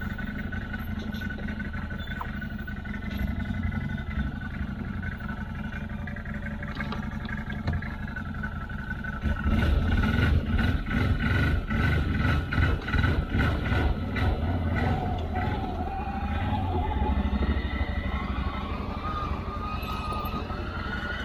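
CFMoto CForce 800 ATV's V-twin engine running, getting louder about nine seconds in as it pulls away under throttle, then a whine rising steadily in pitch as it picks up speed.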